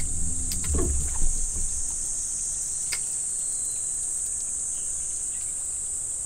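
Steady high-pitched drone of insects calling from the surrounding woods, with a low rumble underneath and a few faint clicks.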